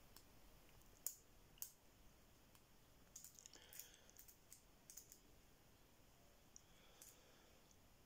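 Faint, scattered clicks and a brief light scrape from a steel lock pick working the pins of a cruciform euro lock cylinder under tension during single-pin picking.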